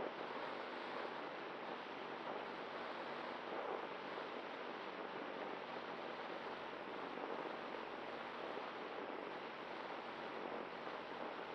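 Steady rush of wind over an RC glider's onboard camera while gliding, with no motor whine.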